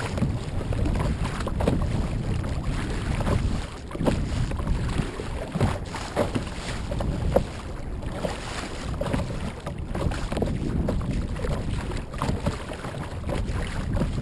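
A Vibe Skipjack 90 sit-on-top kayak paddled through choppy surf: water sloshing and splashing against the hull, with a splash from the paddle blade roughly every second.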